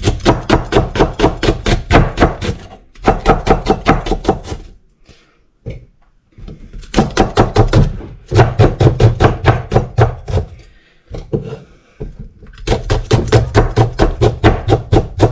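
A cleaver or heavy knife chopping fast on a wooden board, about five to six strokes a second. The chopping comes in four runs with short pauses between them, like mincing.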